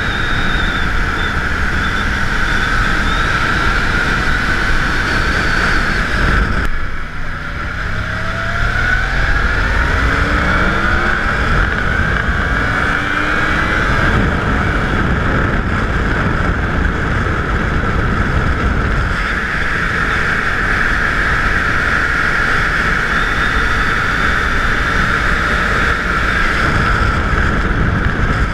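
Motorcycle running on the move, engine and road noise steady, with a high steady whine throughout. About seven seconds in the sound drops briefly, then the engine pitch rises over several seconds as it speeds up again.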